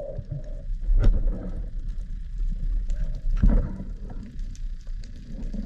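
Water sloshing and rumbling against an action camera held just under the surface, with two sharp knocks about two and a half seconds apart as the camera is handled.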